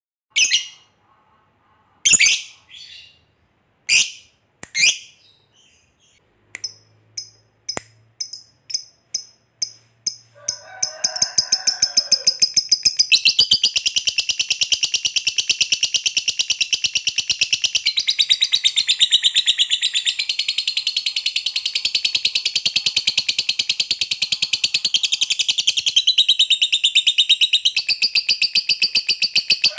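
Lovebird calling: a few loud, shrill single calls, then a quickening run of short chirps that about ten seconds in turns into one long, unbroken rapid chatter lasting nearly twenty seconds. This is the long 'ngekek' trill that keepers prize in a lovebird.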